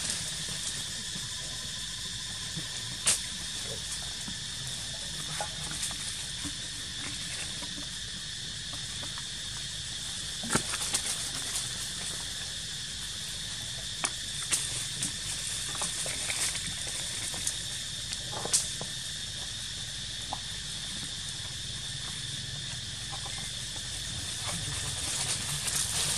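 Insects chirring in a steady high-pitched drone, with a few sharp clicks and snaps scattered through it.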